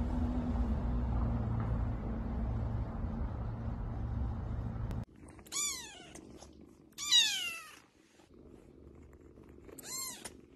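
A cat purring close to the microphone, a steady low rumble that cuts off about halfway. Then kittens mewing three times in high, falling cries, the middle one loudest.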